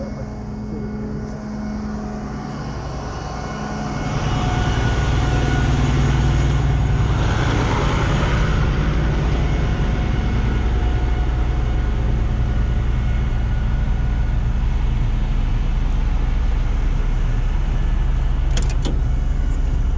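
Heavy tow truck's diesel engine running steadily. It gets louder about four seconds in, and a few sharp clicks come near the end.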